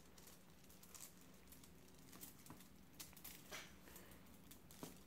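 Near silence, with a few faint taps and light crinkles of a lipstick being dabbed onto a sheet of tin foil.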